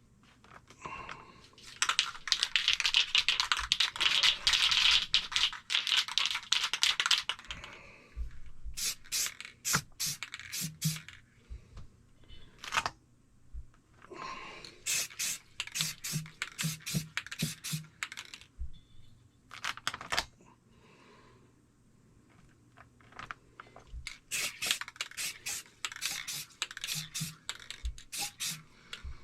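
Aerosol spray paint can spraying: a hissing burst of about five seconds, followed by several shorter bursts of sharp clicks and spurts.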